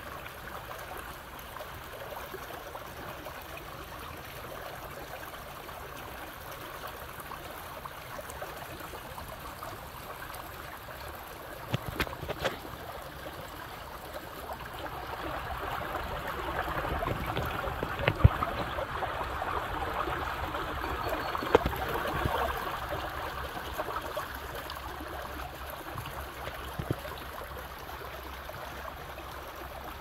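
A small stream in a shallow ditch trickling and flowing steadily, swelling louder for several seconds in the middle. A few sharp knocks stand out over it.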